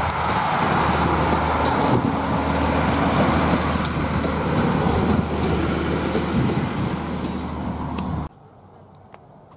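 Queensland Rail 2000 class diesel railmotor set passing close by: its engine running under a steady low hum, with wheels rolling on the track. The sound cuts off suddenly about eight seconds in.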